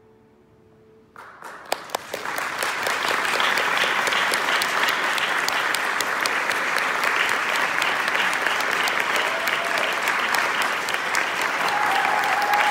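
Audience applauding: after about a second of near quiet the clapping breaks out and quickly swells into steady, loud applause, with a few brief high calls from the crowd near the end.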